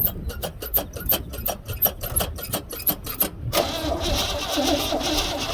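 Starter cranking the engine of a 1970 GMC pickup, an attempt to start it after a new mechanical fuel pump was fitted; it goes with an even beat, about six a second. A little over halfway through, the sound changes to a denser, steady whirring with a whine.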